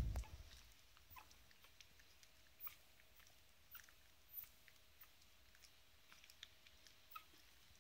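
One-month-old pug puppy suckling milk from a feeding bottle: faint, irregular wet sucking and smacking clicks. A low thump right at the start is the loudest sound.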